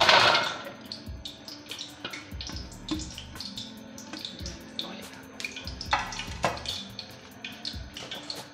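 Wet raw potato sticks tipped into a stainless steel bowl: a brief splashy rush at the start, followed by light wet taps and drips.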